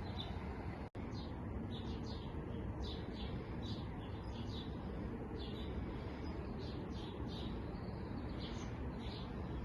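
Small songbirds chirping, many short high chirps repeating in quick succession over a steady low background noise; the sound cuts out for an instant about a second in.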